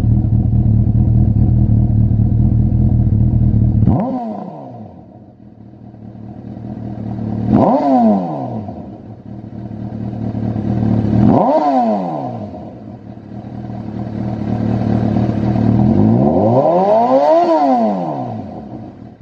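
Honda CB1000R inline-four engine through a Lextek MP4 aftermarket silencer, running steadily and then revved four times. Each rev's pitch climbs and drops back, and the last one is slower and longer.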